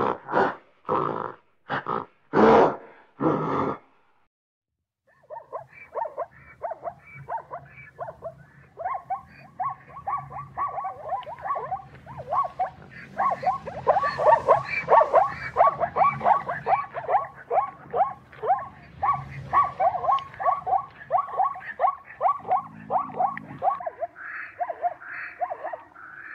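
A few loud grunts in the first seconds, then, after a short pause, plains zebras barking: a long run of short, yelping barks, several a second, with many animals calling over one another.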